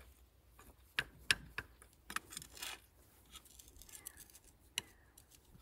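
A flat steel pry blade scraping and clicking against the edge of a cover plate glued onto a DT-20 tractor's cast-iron engine block, as it is worked loose. There are a few sharp metallic ticks in the first couple of seconds, then fainter scratches and taps.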